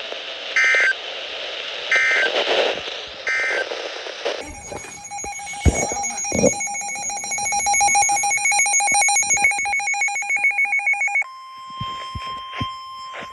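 Emergency Alert System audio from a NOAA Weather Radio. First come three short end-of-message data bursts, about a second and a half apart, over static hiss. From about four seconds in, a rapidly pulsing, ringing alert alarm sounds for about seven seconds, and it is followed by the steady single warning tone.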